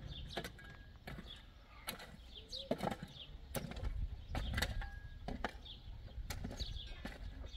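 Metal shovel digging into stony soil, a scrape and knock with each stroke, about once a second, with birds chirping faintly.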